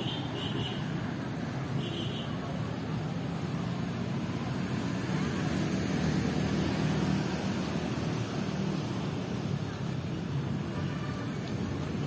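Steady road traffic noise from passing vehicles, swelling louder around the middle, with a few brief high chirps in the first two seconds.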